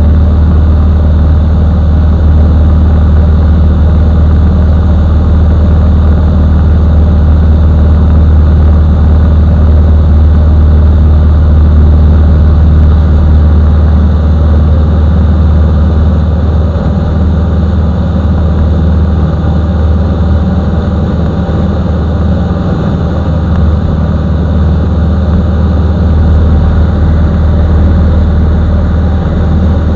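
Mustang II light aircraft's piston engine and propeller droning steadily in flight, heard from inside the cockpit, with a slight easing of level a little past halfway.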